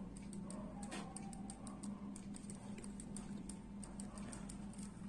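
Faint, tinny electronic music from a single i12 wireless earbud's small speaker, heard mostly as crisp ticking percussion, several ticks a second, over a steady low hum.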